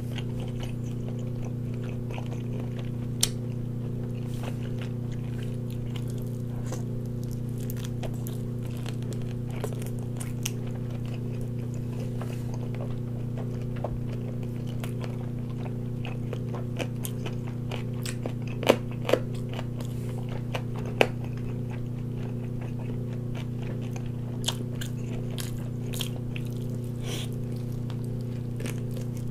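Chewing and biting into a large roasted chicken leg with crisp skin, with a few sharp crunches, the loudest in a cluster about two-thirds of the way through. A steady low hum runs underneath.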